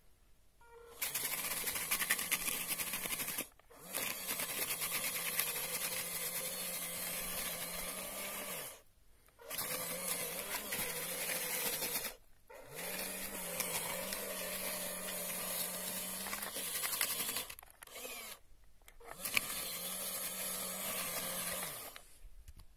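Small electric drive motor of a homemade PVC-plastic K-701 Kirovets tractor model, running steadily in stretches of a few seconds and stopping briefly about five times in between.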